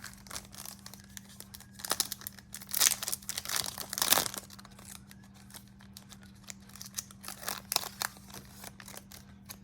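Foil trading-card booster pack torn open and crinkled by hand, a dense crackle loudest about three to four seconds in, with lighter crinkling later.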